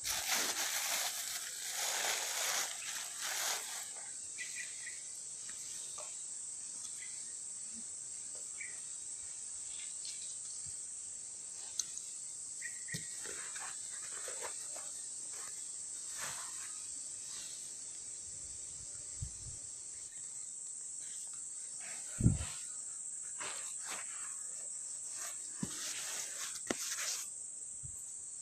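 Insects shrilling steadily at one high pitch, with rustling from handling in the first few seconds and scattered small clicks. A single sharp low thump about two-thirds of the way through is the loudest sound.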